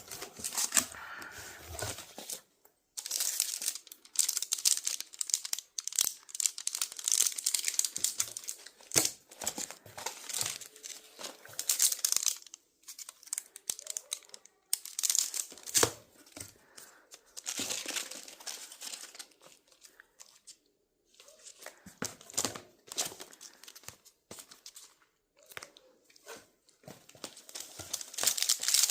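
Packaging being torn open and crinkled in irregular bursts with short pauses: the wrapping coming off a newly bought album.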